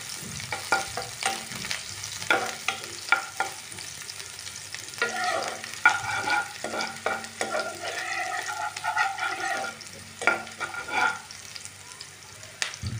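Chopped onion sizzling in hot oil in a nonstick pan, with a spatula scraping and knocking against the pan as it is stirred.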